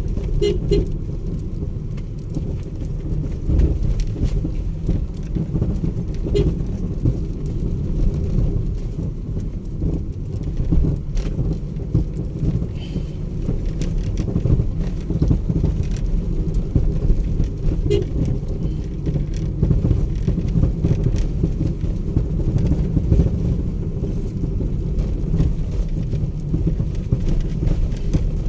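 Motor vehicle driving over a rough road: a steady low rumble of engine and tyres, with frequent small knocks and rattles.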